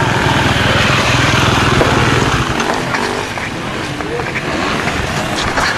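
Off-road motorcycle engine running at a steady pitch, dropping off about two and a half seconds in, with people's voices around it.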